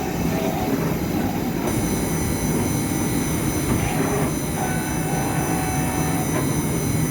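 CNC engraving machine cutting into a brass plate: a steady mechanical running noise with a whining tone. A set of high whining tones joins about a second and a half in.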